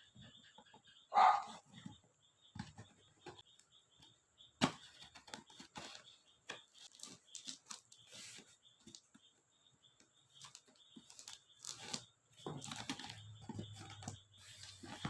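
Faint, irregular rustling, tearing and knocking as a package is opened by hand, with one louder rasp a little over a second in and busier handling near the end.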